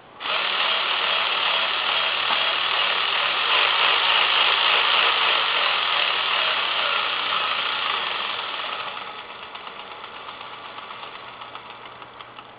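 MP312F-24-A dot matrix printer mechanism running: the print head carriage travels along its rails with a dense, loud mechanical rasp. About eight seconds in, the rasp eases into quieter, regular ticking.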